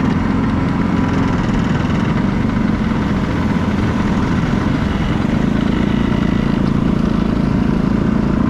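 Vespa scooter engine running steadily under way.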